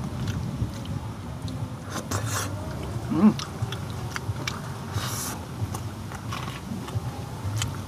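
Close-miked eating sounds: chewing and lip smacks of rice and chicken kaldereta eaten by hand, with small clicks. About three seconds in there is a brief pitched sound that rises and falls, the loudest moment.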